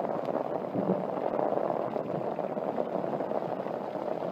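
Heavy rain falling on an umbrella overhead: a steady, dense patter.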